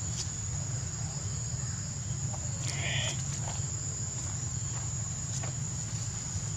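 Steady high-pitched drone of insects over a low steady rumble, with a short squeak about three seconds in.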